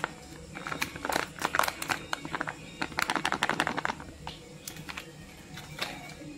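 Plastic spice-paste packet crinkling and crackling as it is squeezed out over the pot: quick runs of sharp crackles about half a second in and again around three seconds in, then a few scattered ones.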